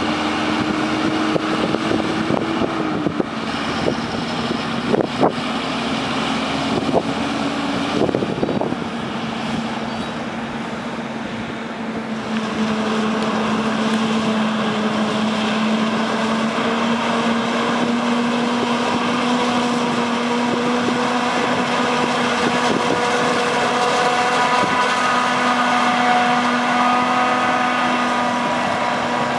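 Heavy farm machinery running: a Claas tractor pulling a loaded silage trailer, with a few sharp knocks in the first several seconds. From about twelve seconds in, a Claas Jaguar forage harvester chops maize alongside a tractor, with a steady, even engine and machine drone that holds its pitch.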